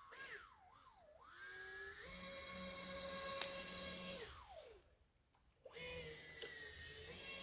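Electric motor of a small RC boat whining as the throttle changes. The pitch climbs about a second in and holds steady while the boat planes, then drops away and cuts out around five seconds in before picking up again.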